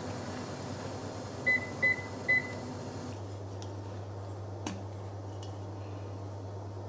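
Induction cooktop's control panel giving three short high beeps about a second and a half in, a little under half a second apart. A steady low hum follows, with one faint click.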